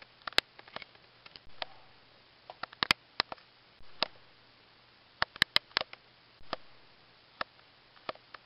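Irregular small clicks and knocks of plastic LEGO Bionicle and action figures being handled and moved, with a few soft rustles that fade quickly.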